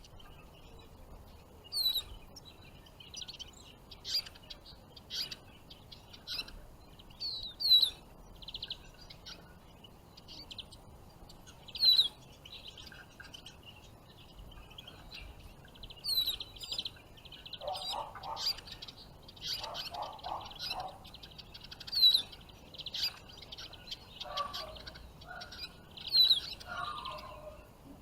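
Small songbirds calling: repeated short, sharp, high chirps, some sliding in pitch, every second or two. A lower chattering call comes in now and then in the second half.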